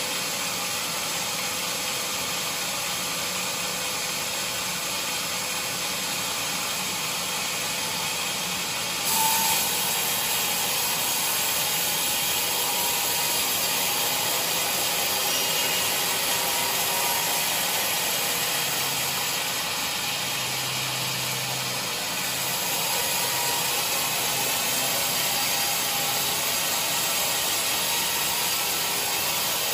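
Sawmill band saw running, a steady mechanical hiss. About nine seconds in the sound brightens and grows a little louder as the blade enters the teak log, then it goes on steadily cutting.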